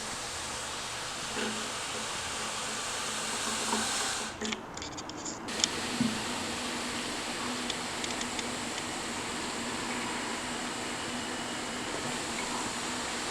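A thin stream of water running steadily out of a straw pushed through the side of a plastic bottle, giving an even hiss that dips briefly about four seconds in.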